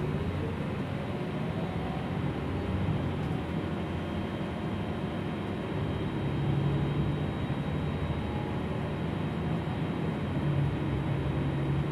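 Gillig low-floor city bus driving, heard from inside the cabin: a steady engine and road noise. The engine note rises about six seconds in and again near the end.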